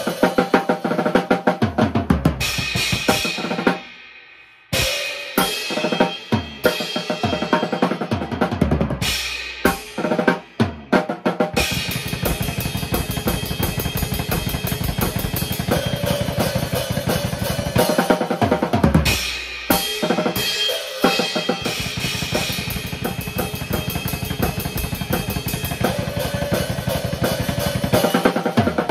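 A drum kit being played in busy, fast patterns. The playing stops briefly about four seconds in and breaks up again around ten seconds, then runs on as dense, continuous hits.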